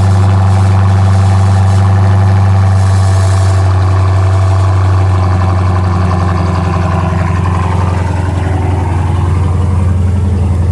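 Dodge Challenger R/T's 6.4-litre HEMI V8 running loudly and steadily at idle, a deep even exhaust note with no revving.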